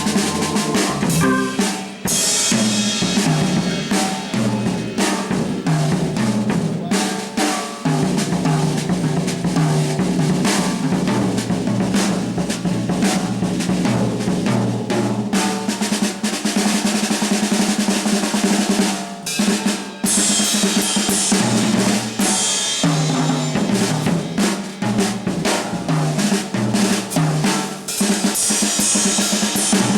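Jazz drum kit played busily, with dense snare and bass-drum strokes and stretches of bright cymbal wash. Sustained organ notes step along underneath, in a live organ-trio performance.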